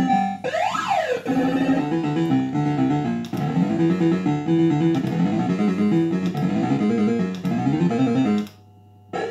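Bell Fruit Cash Explosion fruit machine's electronic sound effects: a pitch sweep up and back down, then a fast synthesized tune of quick stepping notes that stops about a second before the end, with another sweep starting just at the end.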